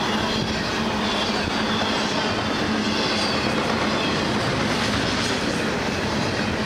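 Double-stack intermodal container train passing close by: steel wheels running on the rails in a steady, unbroken rumble.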